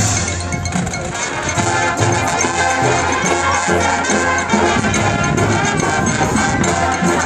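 High school marching band playing, brass and winds over drumline and front-ensemble percussion, loud and steady throughout.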